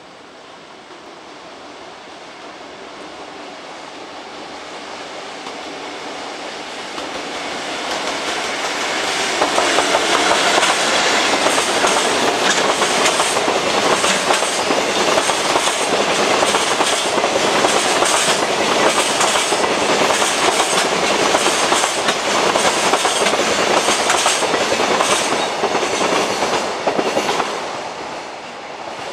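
JR Freight container train, drawn by an EF81 electric locomotive, approaching and passing close by. It grows steadily louder for the first several seconds, then the wagon wheels clatter over the rail joints in a quick, even rhythm for about seventeen seconds, and the sound fades near the end as the last wagons go by.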